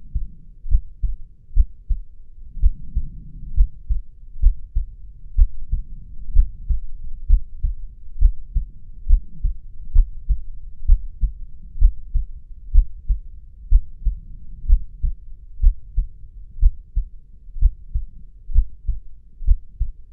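Normal heart sounds: a steady lub-dub, each beat a close pair of low thumps (the first heart sound, then the second), a little more than one beat a second.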